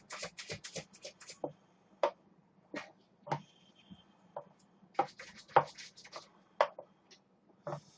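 Close-up eating sounds of beef short-rib soup with rice: a quick run of slurps in the first second, then scattered chewing and mouth clicks.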